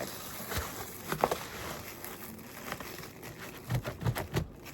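Bamboo knife sawing through a pizza in its cardboard box: crackling, scraping clicks, with a few soft thumps near the end.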